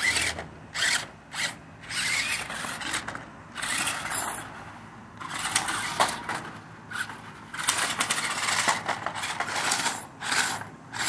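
Monster Jam Megalodon Storm RC monster truck driven in bursts of throttle, its electric motor and gears whirring and its foam tyres scraping over grass and concrete, with a sharp knock about six seconds in.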